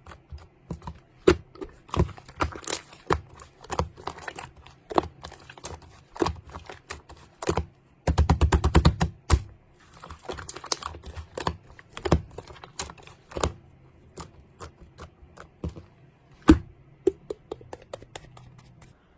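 Irregular sharp clicks and taps, with a fast run of rapid clicks about eight seconds in and a few louder knocks.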